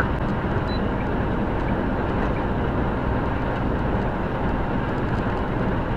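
Steady in-cab noise of a semi-truck cruising at highway speed, about 70 mph: an even engine drone under road and tyre rumble, with no sudden events.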